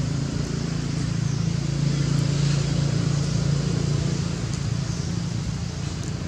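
Low, steady motor vehicle engine hum that grows louder toward the middle and then fades.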